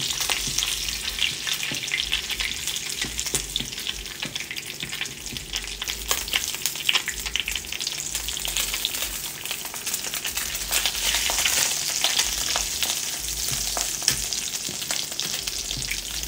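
Salmon fillet frying skin-side down in very hot butter and olive oil in a nonstick skillet: a steady sizzle full of crackling spatters, with a silicone spatula shifting the fish in the pan.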